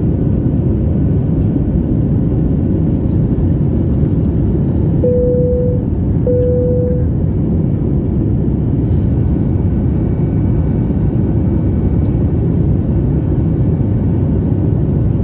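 Steady cabin roar inside a Boeing 737 MAX 8 in its climb after takeoff: the rumble of its CFM LEAP-1B engines and airflow, heard from a window seat over the wing. About five seconds in, two short steady tones sound one after the other.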